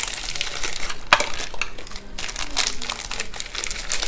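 Plastic Oreo biscuit wrapper crinkling and crackling as the biscuits are pulled out of it onto a plate, with a sharp click about a second in.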